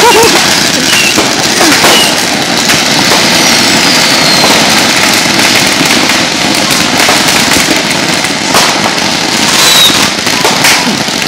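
Many consumer fireworks going off at once: a loud, unbroken crackle and pop of firecrackers and fountains, with a few whistles falling in pitch.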